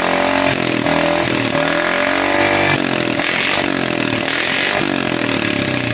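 Yamaha Mio M3 scooter's single-cylinder engine revved repeatedly through a bored-out "bobokan" exhaust. Each throttle blip rises and falls about once a second, with one longer, higher rev near the middle.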